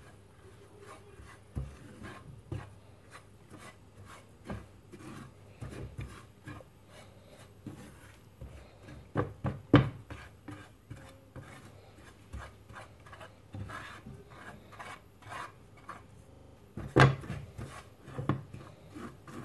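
Silicone spatula scraping and stirring dry semolina, desiccated coconut and milk powder around a nonstick frying pan as they are dry-toasted until golden: an irregular run of soft scrapes and rubs, with a few louder knocks about ten seconds in and near the end.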